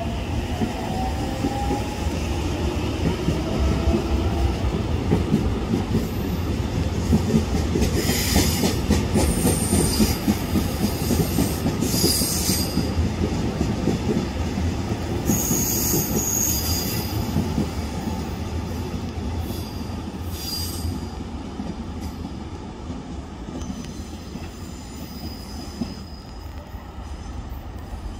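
Korail 311000-series electric multiple unit running through the station: a steady rumble of wheels on the rails, with a faint whine rising in pitch in the first couple of seconds. Several short high wheel or brake squeals come between about eight and twenty-one seconds in, and the rumble dies down toward the end.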